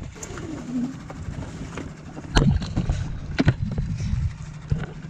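Boat engine running with a steady low hum, with several sharp knocks over it, the loudest about two and a half seconds in and another about a second later.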